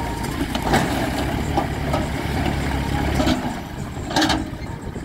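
Tractor engine running steadily while its tipping trailer dumps soil and rocks, with rocks clattering down several times. The engine's low hum drops away about three seconds in, and a longer rattle of tumbling rocks follows about a second later.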